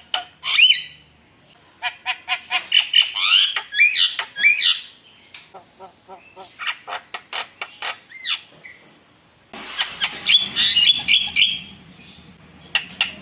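Javan myna in full song: several bursts of rapid, sharp clicking notes mixed with short squawky rising whistles, with brief pauses between the bursts.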